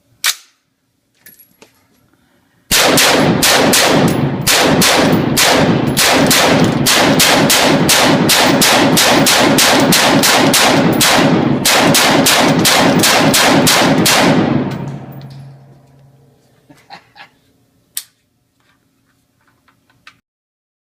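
Rapid gunfire: a long string of shots, about three to four a second, for roughly twelve seconds, echoing so the gaps between shots stay loud. It then dies away, and a few light clicks and one sharper crack follow.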